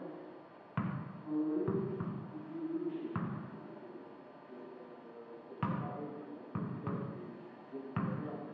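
Eight heavy thuds at uneven spacing, two of them close together twice, with short low pitched tones sounding between them.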